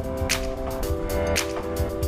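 Background music: held chords with percussion hits.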